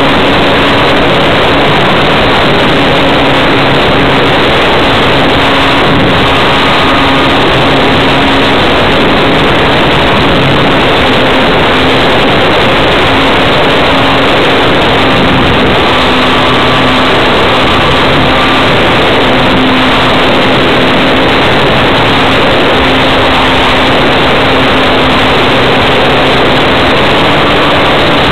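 Multiplex Gemini RC biplane's motor and propeller droning steadily in flight, heard from a camera riding on the plane, with heavy wind rush over it; the drone's pitch wavers slightly as the plane manoeuvres.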